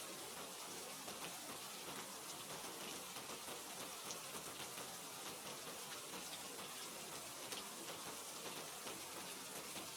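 Steady rain falling, a constant hiss with many small drop ticks.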